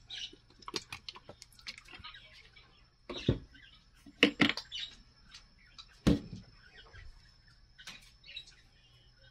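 Cooking oil heating in a dry wok, crackling with scattered sharp pops, a few of them louder.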